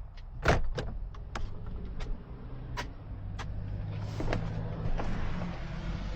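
Sharp, irregular clicks over a steady low hum, with a hiss building about four seconds in.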